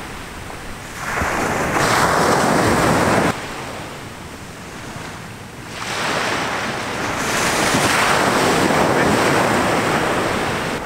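Ocean surf breaking and washing up a sandy beach in two long swells, the first ending sharply, with wind buffeting the microphone.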